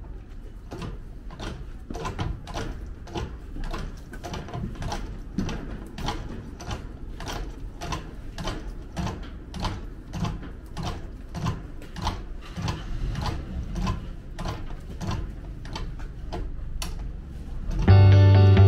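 A hand ratchet winch clicking about twice a second as it hauls a Heidelberg platen press on roller dollies across a concrete floor, with a low rumble underneath. Guitar music cuts in loudly near the end.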